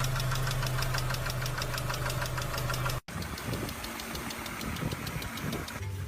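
Car engine running with a rapid, even knock or tick over its steady hum. About three seconds in it cuts off abruptly to a rougher, uneven engine sound.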